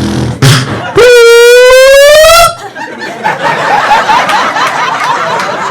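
A fire alarm's loud rising whoop tone, lasting about a second and a half, cuts in and then stops. An audience laughing follows.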